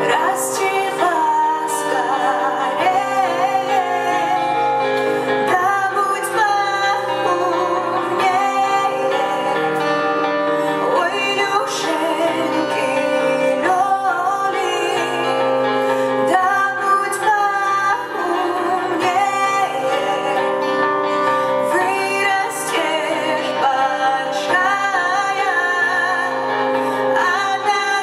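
Live band performing its arrangement of a Russian folk lullaby: a woman's voice carries a wavering melody over sustained instrumental accompaniment, without a break.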